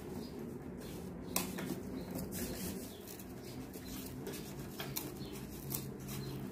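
Scissors cutting through corrugated cardboard: a few crisp snips and the rustle of the sheet being handled, over a low steady hum.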